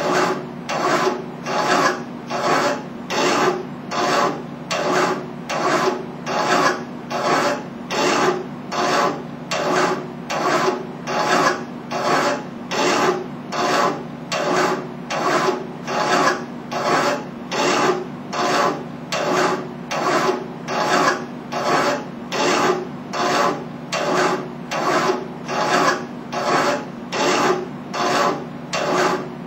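A hand file rasping on metal held in a bench vise, in steady back-and-forth strokes a little more than one a second.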